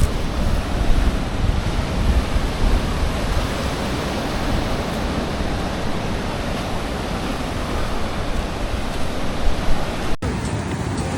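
Loud, steady rushing noise, with heavy buffeting at the bottom end like wind on the microphone. An abrupt cut about ten seconds in changes the sound.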